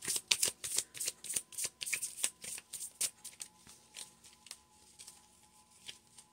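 A deck of oracle cards being shuffled by hand: quick rustling strokes about three or four a second, growing softer and sparser after about three seconds.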